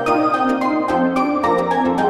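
Background music: a chill electronic instrumental with a melodic synth line, sustained bass notes and a steady beat.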